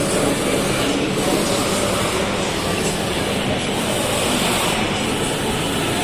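Steady mechanical noise with a faint low hum from a running sheet-metal cutting machine.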